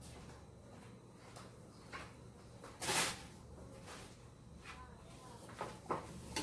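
Faint handling noises, a few soft clicks and knocks over a low steady hum, with one louder rustling knock about three seconds in.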